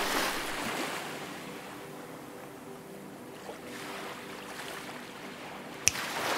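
Soft rushing swells of noise, like wind or surf, rising at the start and again near the end, over faint sustained low tones. One sharp click comes a little before the end.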